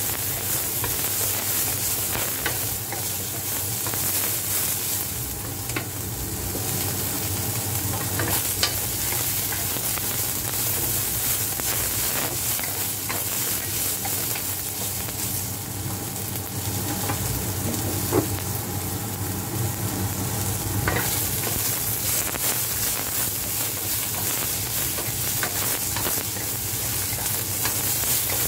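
Celery strips, garlic and tofu sizzling in hot oil in a wok while a wooden spatula stirs and scrapes them, with a few sharp taps of the spatula against the pan.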